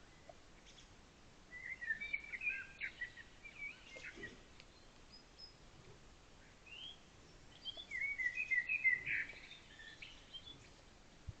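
A songbird singing two short, quick, chirping phrases about six seconds apart, over faint steady background hiss.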